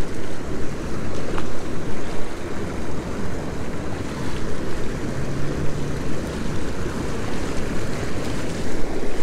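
Turbulent water of a warm-water outflow rushing past a concrete wall, a loud, steady wash of water noise.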